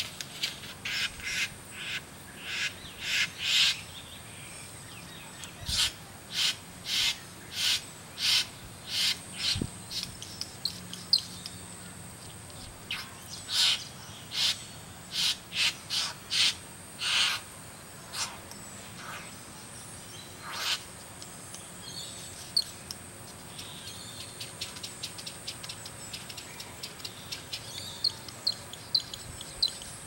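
Great bowerbird giving harsh, rasping calls, each short, in runs of several at a little under two a second, some runs growing louder. Later come softer, quick chipping notes, over a faint steady high insect hum.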